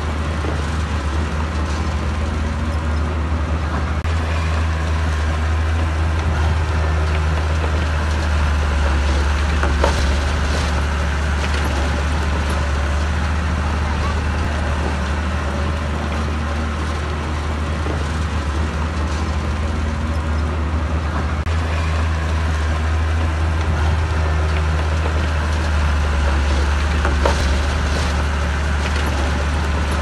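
Heavy diesel engine of earth-moving machinery running under load, a deep steady rumble whose pitch rises and falls slowly several times. Two sharp knocks stand out, about ten seconds in and near the end.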